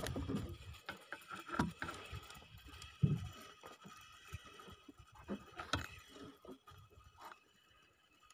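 Irregular knocks and clicks of handling on a small wooden fishing boat, with a louder thump about three seconds in.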